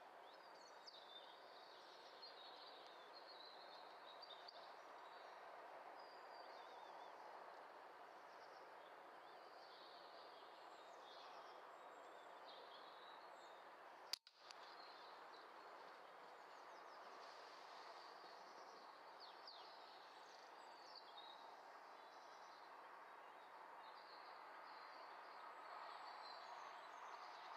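Faint woodland birdsong, with a single sharp air rifle shot about halfway through.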